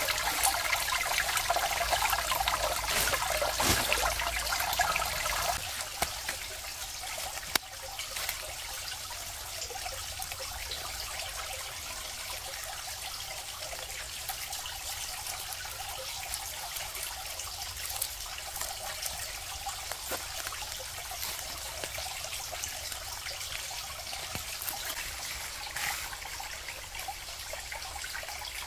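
Water trickling steadily, with scattered small drips. It is louder for the first five seconds or so, then drops to a quieter, even trickle.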